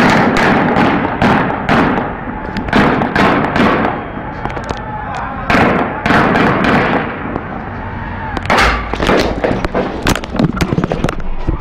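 Gunfire in a city street: repeated gunshots, each trailed by echo off the buildings. Single shots come irregularly for most of the time, then a denser run of rapid shots near the end.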